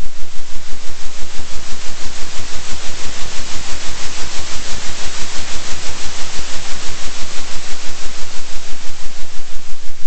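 Synthetic hiss-like noise pulsing in loudness about three times a second, a steady 3 Hz oscillation.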